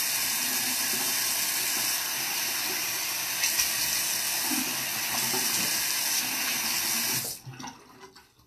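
Bathroom sink tap running steadily while water is scooped and splashed onto the face with the hands, rinsing off face wash. The running water cuts off suddenly near the end as the tap is shut.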